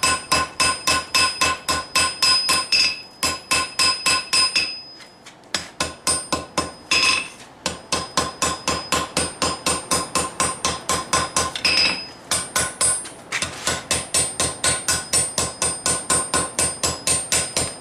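Hand hammer striking hot steel on an anvil, about five quick blows a second with a bright metallic ring, in runs broken by a pause of about two seconds near the middle. The smith is forging down the step where the blade drops to a tang.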